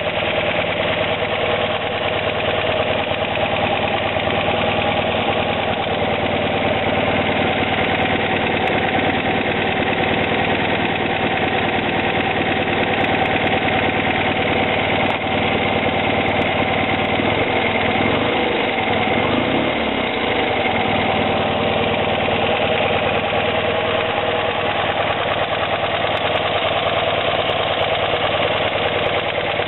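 1976 BMW R90S's air-cooled 900 cc flat-twin boxer engine idling steadily.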